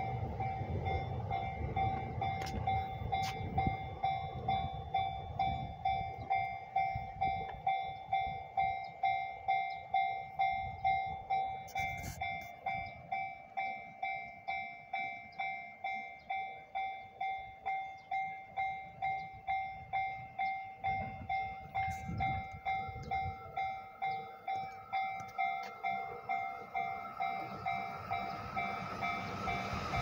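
Japanese level-crossing warning bell ringing a steady electronic 'kan-kan' tone, about two strikes a second, with the barrier down. Near the end a Yamanote Line train can be heard approaching.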